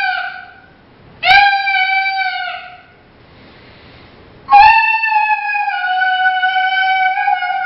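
A two-reed coyote pup howler diaphragm call, blown through cupped hands by a beginner trying to howl. One howl is ending at the start, a second starts about a second in and lasts about a second and a half, and a long howl starts abruptly about halfway through and is still going at the end. Each holds one clear note that sags lower toward its end.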